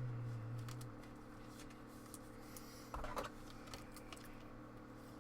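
Faint handling noises of trading cards being sorted by hand: scattered light clicks, with a brief louder rustle about three seconds in. A short low drone sounds in the first second, over a faint steady hum.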